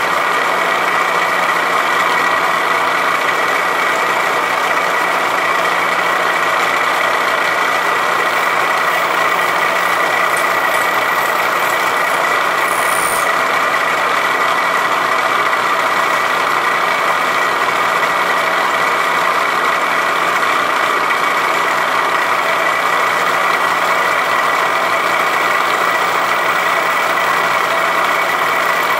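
Vertical milling machine side-milling a plastic block with a 7/16-inch two-flute uncoated carbide end mill in a climb cut. The spindle and cutter make a loud, steady noise with a clear high tone.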